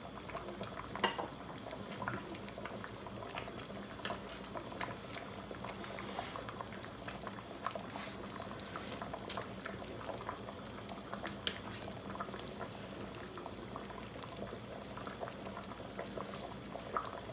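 Pot of bamboo-shoot soup boiling: steady bubbling with scattered sharper pops.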